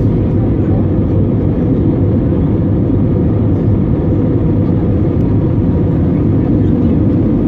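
Steady cabin noise inside an Airbus A320neo in flight: the low, even rumble of its CFM LEAP-1A engines and the airflow past the fuselage, heard from a window seat.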